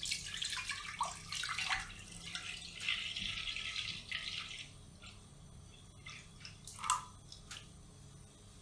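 Liquid pouring and splashing into a container for about four and a half seconds, followed by a few light clicks near the end.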